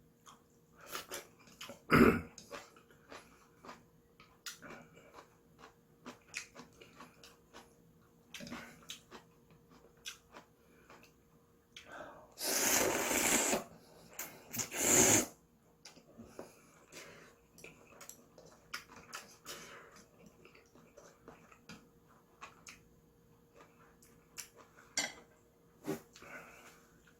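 Someone eating instant ramen: small chewing and mouth sounds throughout, with two loud, noisy slurps of noodles around the middle and a sharp knock about two seconds in.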